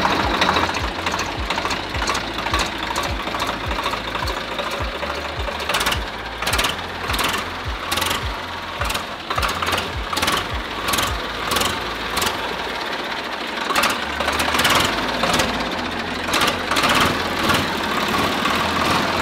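Swaraj 735 FE tractor's three-cylinder diesel engine running as the tractor pulls away in first gear, with an even low chugging beat. Sharp clicks and rattles join in from about six seconds in.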